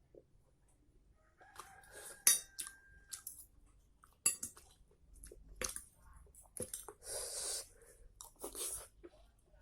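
Close-up eating sounds of a person eating wet-fried noodles: chewing and mouth noises, with scattered sharp clicks and clinks of utensils against the dish.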